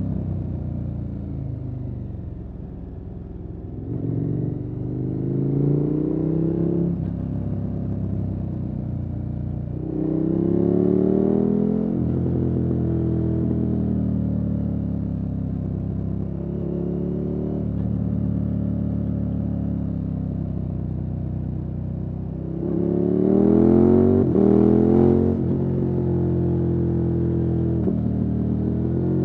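KTM 1290 Super Adventure S's V-twin engine through an aftermarket Wings exhaust, accelerating in four runs of rising revs, each cut short by a quick gear change, and easing off in between. The hardest pull comes near the end, with two or three fast upshifts.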